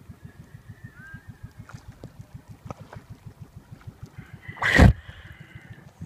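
Small boat engine idling with a rapid low thudding, about nine beats a second. A loud splash of water hits the microphone a little over four seconds in.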